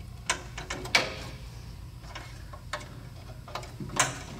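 Plastic wire-harness connectors clicking and tapping as they are handled and pressed onto the pin headers of a gate operator's control circuit board. There are a few short, sharp clicks, the loudest about a second in and near the end.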